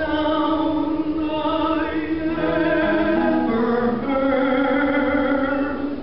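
Operatic tenor singing a few long, held notes into a microphone over band accompaniment, amplified through a PA.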